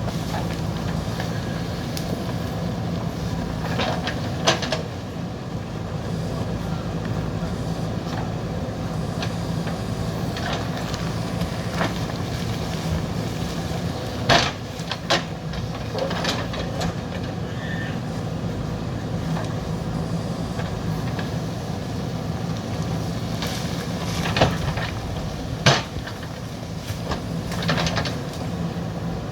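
JCB backhoe loader's diesel engine running steadily under work, with a few short sharp knocks, the loudest about halfway through and near the end.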